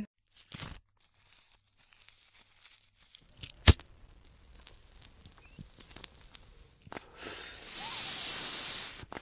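Logo-reveal sound effects: a brief whoosh, one sharp click about three and a half seconds in, faint crackling, then a steady hiss lasting about two seconds near the end.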